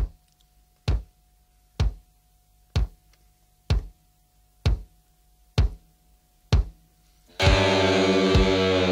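Soundtrack music: a lone deep drum beat about once a second over a faint held tone, then the full band comes in loudly with guitar near the end.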